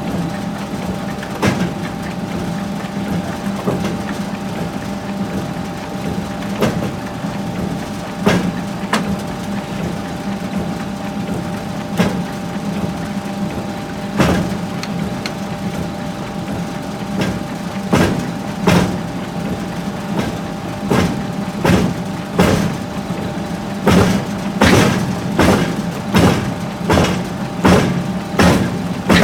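Hammer blows on a hot steel axehead being forged, over a steady machinery hum. The blows are scattered at first, then from about halfway come in a regular run, quickening to about one and a half a second near the end.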